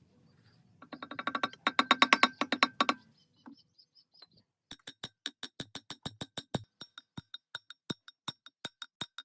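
A quick run of sharp metallic clicks about a second in, then after a pause a slower, even series of clicks, about three to four a second.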